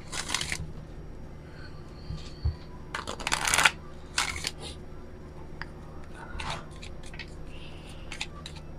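Oracle card deck being shuffled by hand: short bursts of cards riffling and slipping against each other, the strongest right at the start and about three seconds in, with lighter scattered card clicks between them.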